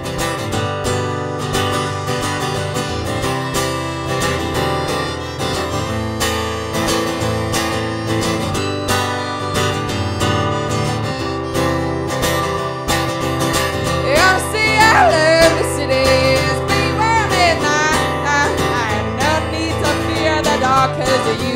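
Acoustic guitar strummed steadily while a harmonica in a neck rack plays a wavering, bending melody over it. The harmonica becomes louder and more prominent a little past the middle.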